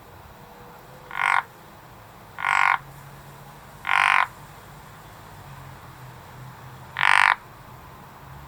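A frog croaking in four short, separate calls, each about a third of a second long. The first three come a second or so apart, and the fourth and loudest comes after a pause of about three seconds.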